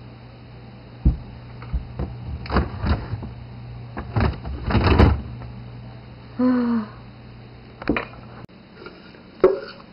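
Refrigerator crisper drawer being slid open and its contents handled: plastic drawer and shelf knocks and clatter with rustling, the busiest stretch around five seconds in. A steady low hum runs underneath and stops about eight and a half seconds in, and there are a couple more knocks near the end.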